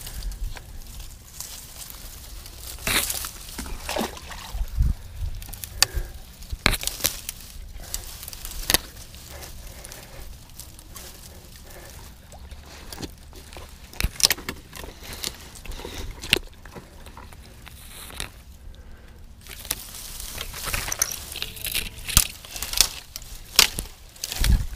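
Scattered cracks and rustles of branches being pulled and handled, with some sloshing water, over a steady low rumble of wind: a fishing line snagged in branches at the water's edge being worked free.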